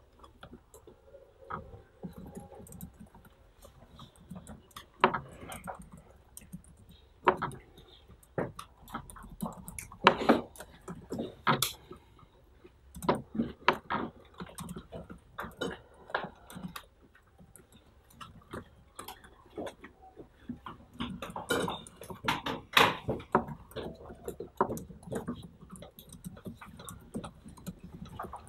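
Typing on a laptop keyboard: irregular clicks and taps in short clusters, with brief pauses between them.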